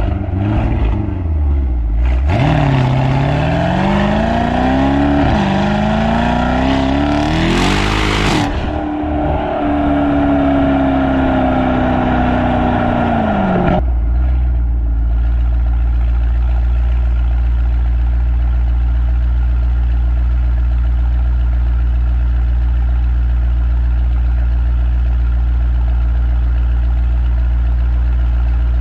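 Mercedes-AMG E63 S 4.0-litre twin-turbo V8 (M177), fitted with upgraded downpipes and its exhaust flaps fully open, revving: the engine note climbs in two runs with a brief dip between them, is held high and eases slowly, then drops suddenly about fourteen seconds in to a steady, deep idle.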